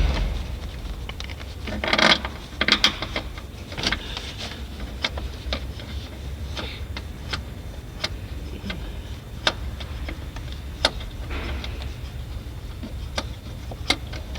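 Irregular sharp clicks and light clattering of tools and parts being handled while they are refitted in a car's engine bay, over a steady low hum.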